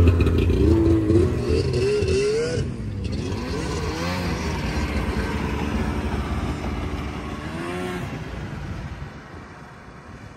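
Snowmobile engines revving, their pitch rising and falling, loudest in the first few seconds, then fading away as the sleds pull off until only a faint hum is left near the end.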